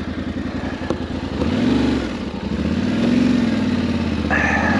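Yamaha Ténéré 700 World Raid's parallel-twin engine pulling away on a dirt track, revving up, easing off and revving up again before settling into a steady pull.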